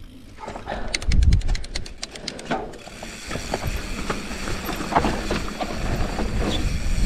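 Mountain bike setting off: the rear hub's freewheel clicks rapidly and evenly for about a second and a half while coasting. Then a rising rush of tyres on dirt and wind takes over, with small knocks from the bike over the trail.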